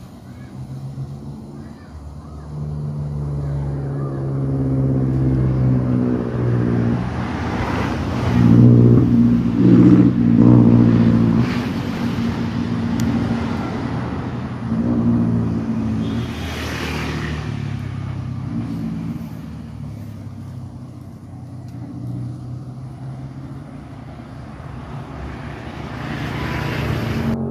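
Motor vehicle engines passing on a road, their pitch rising and falling as they go by. The loudest passes come about eight to eleven seconds in, with another around sixteen seconds.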